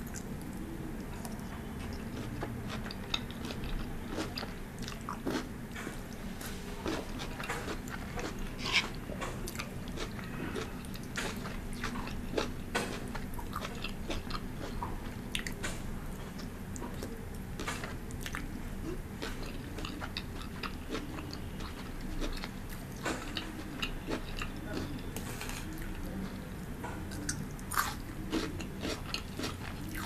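Close-miked chewing of a mouthful of pan-fried noodles and fresh, crunchy stir-fried vegetables, with frequent short crunches at an irregular pace.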